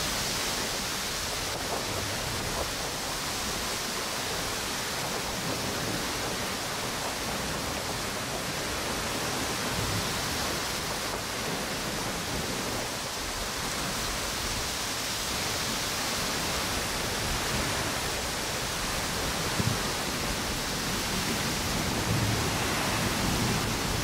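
Steady rushing noise of ocean waves and wind blowing through palm trees on a beach in stormy weather, with a few brief low swells in the last few seconds.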